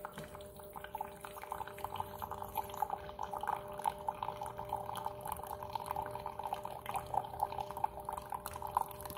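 Thin stream of freshly brewed coffee from a refrigerator's built-in Keurig dispenser trickling and splashing into a ceramic mug, with an uneven patter. A steady hum runs underneath.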